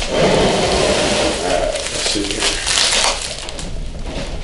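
Bubble wrap crinkling and rustling as the wrapped compressor pump is handled and stood upright, with a bright burst of crackling about three seconds in.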